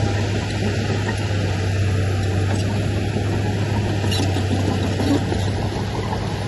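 Diesel engine of a heavy earthmoving machine running steadily under load, a constant low hum with dense mechanical noise over it.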